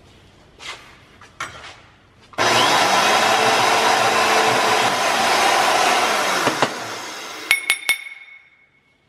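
Porta-Band portable band saw running and cutting through metal tubing for a few seconds, its motor starting about two seconds in and winding down after the cut. Near the end, three sharp, ringing metallic clinks.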